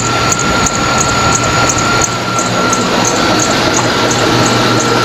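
GMC engine running with its accessory belt drive turning: a steady high whine over the engine noise, with a light tick about three times a second. It is the belt-area squeak that the owner is still tracking down.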